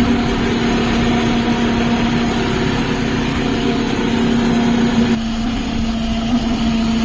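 Kubota diesel tractor engine running with a steady, horn-like droning tone over the engine noise, the noise fault being shown off. About five seconds in, the broader engine noise drops while the tone carries on.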